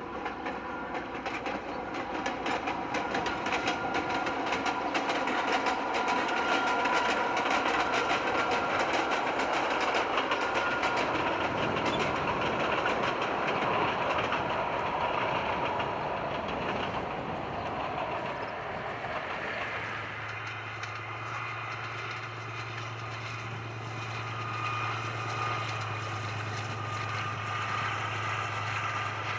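A 760 mm narrow-gauge passenger train passes, its wheels clicking rapidly over the rail joints under a steady running rumble, loudest in the first half and fading away. About two-thirds of the way through the sound changes to a quieter passing of coaches over a steady low hum.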